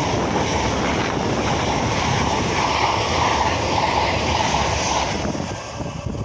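LNER express passenger train passing close by at speed: a loud, steady rush of wheels on rail and air, which eases off in the last second as the tail of the train goes by.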